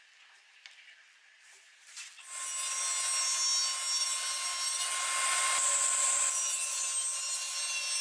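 Table saw running and cutting a groove along the edge of a pine board held on end against the fence. After about two seconds of faint handling clicks, the saw sound comes in quickly and stays loud and steady, with a high hiss and a steady hum.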